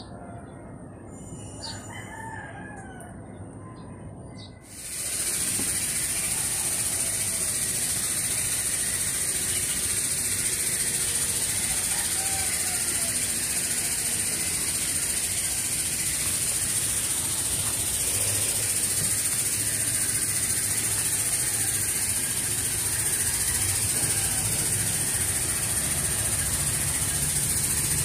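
Rooster crowing now and then over a steady, loud high-pitched hiss that sets in suddenly about five seconds in.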